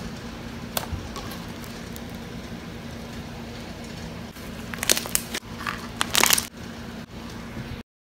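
Homemade glitter slime of white school glue and contact solution being poked and stretched by hand, giving sticky clicks and crackly pops, loudest in two short clusters around the middle. The sound cuts off abruptly just before the end.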